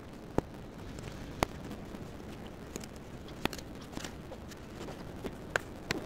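Footsteps through deep snow, with four sharp clicks spread through.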